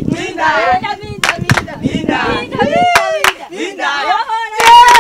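A group of voices singing and chanting with sharp hand claps, to a dance. Near the end, a loud voice holds one long note.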